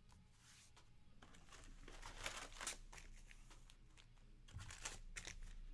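Foil trading-card packs and their cardboard box being handled: faint, irregular crinkling and rustling.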